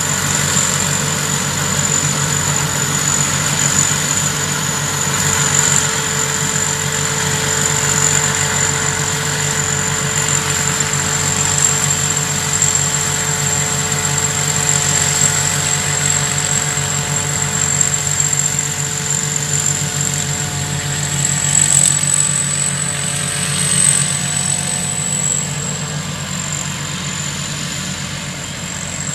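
Thai Charoen Kanchang combine harvester running steadily, its engine hum carrying a constant high-pitched whine.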